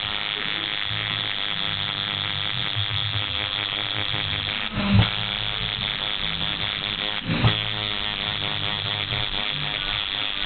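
Electric tattoo machine buzzing steadily, breaking off briefly twice around the middle.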